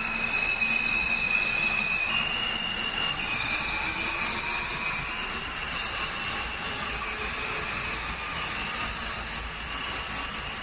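R160 New York City subway train running away from the platform: continuous wheel and rail noise with a high whine that steps up in pitch about two seconds in, then drops back slightly and slowly fades as the train gets farther away.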